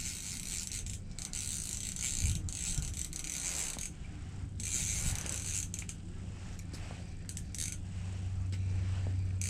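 Fishing reel being cranked to reel in a hooked fish: a fast, dense ticking of the reel's gears in stretches of a second or two, with short pauses between. A low steady hum runs underneath and grows stronger in the second half.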